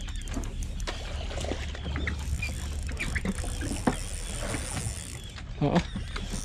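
Boat engine running with a low, steady rumble, over scattered light clicks and rattles from a spinning reel being worked against a hooked fish.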